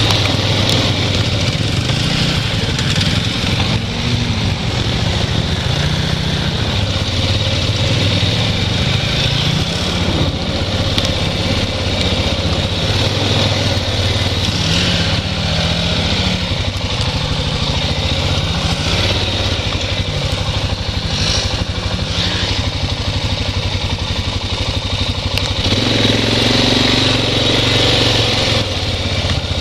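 ATV engine running under load, its revs rising and falling again and again as the throttle is worked. It gets louder for a few seconds near the end.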